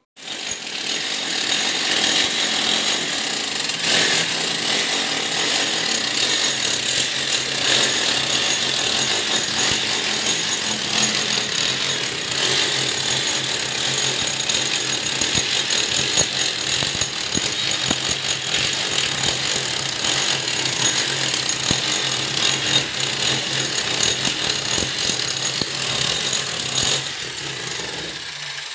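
Handheld electric power tool running continuously against a laterite brick wall, working a channel for electrical conduit. It starts abruptly and eases off near the end.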